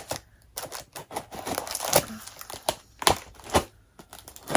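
Scissors snipping through packaging, with plastic wrapping crinkling and tearing in a run of short, irregular clicks and rustles.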